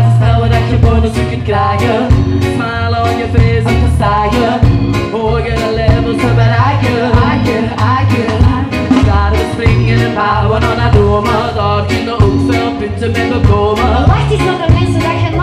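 Live band music: drum kit keeping a steady upbeat beat over a strong bass line, with melodic instruments and some singing.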